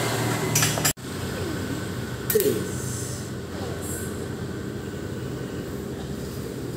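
Metal spatulas scraping and clinking on a hot teppanyaki steel griddle over a steady sizzling hiss, with sharp clacks near the start and about two and a half seconds in.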